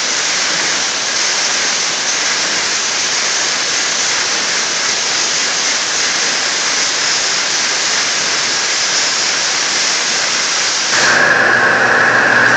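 Flow waterjet cutting head running while it engraves a plate, giving a loud, steady, rain-like hiss of high-pressure water and spray. Near the end the sound gets louder, and a steady low hum and a high whine come in.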